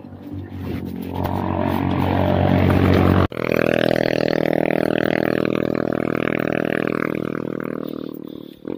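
A motor vehicle's engine running close by, steady in pitch. It drops out for an instant about three seconds in, then carries on and fades near the end.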